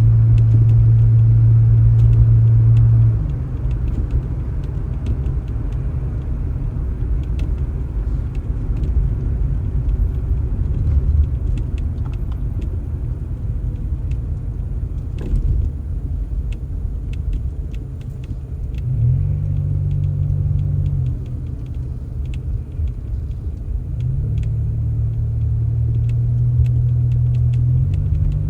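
A vehicle engine running with a continuous low rumble. A steady low drone is strong for the first three seconds, comes back for about two seconds past the middle, and returns near the end.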